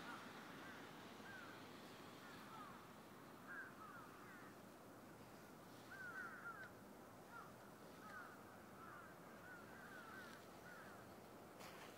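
Faint chirping of birds: many short, quick calls scattered irregularly, over a quiet background hiss.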